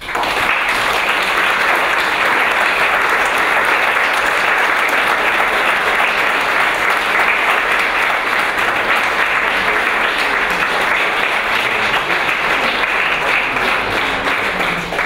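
Audience applauding in a conference hall at the end of a talk, sustained clapping that begins suddenly and dies away near the end.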